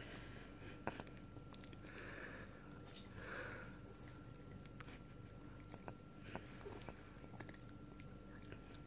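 Small dog chewing and licking at sticky toffee: scattered faint mouth clicks and smacks, with a couple of short sniffs or snuffles about two and three seconds in.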